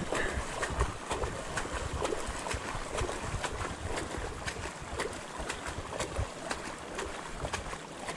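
Bicycle being ridden through deep floodwater: water swishing and splashing around the wheels, with scattered sharp ticks throughout.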